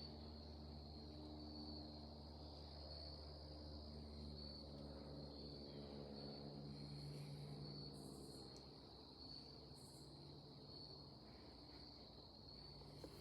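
Faint outdoor quiet: insects chirping steadily at a high pitch, over the low, distant drone of a small plane passing overhead.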